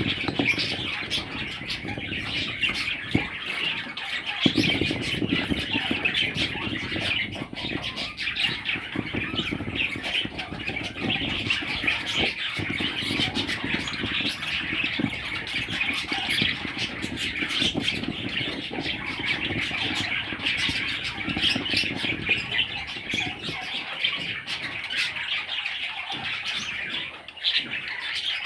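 Budgerigar chicks squawking and chirping without pause in a dense, raspy chatter.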